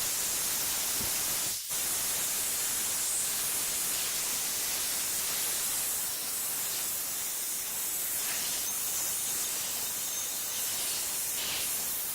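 Compressed-air blow gun hissing steadily as it blows out an ignition coil and its rubber boot to drive out moisture, with a brief break about a second and a half in.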